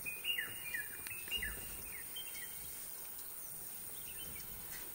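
Forest ambience: a bird calling in short, falling chirps, several of them in the first two seconds or so, over a steady high hiss.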